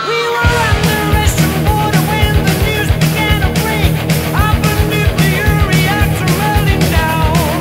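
Rock music with distorted guitars, drums and a singing voice.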